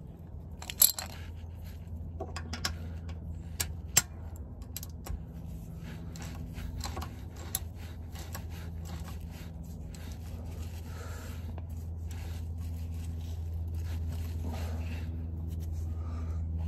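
Ratchet clicking and metal tool taps and scrapes as a differential drain plug is screwed back into a Mercedes Sprinter's rear axle casing, with a couple of sharper knocks in the first few seconds and a run of quick clicks from about six seconds on. A steady low hum runs underneath.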